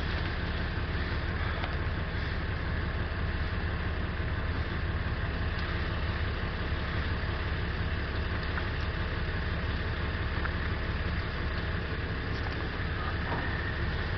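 Steady low rumble of an engine running at idle, with no change in pitch or level.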